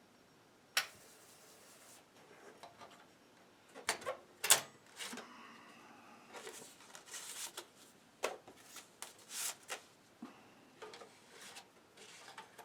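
Irregular clicks and knocks of hands handling hardware, with a brief faint whir about halfway through.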